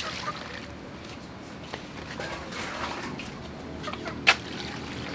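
Water poured from a plastic scoop into a stainless steel basin and sloshed around as vegetables are washed by hand. A single sharp knock comes about four seconds in.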